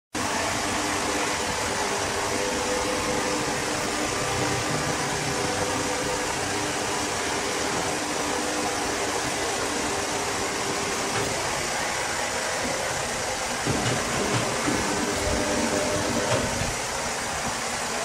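Steady whirring of machinery running, with a few low knocks about three quarters of the way in.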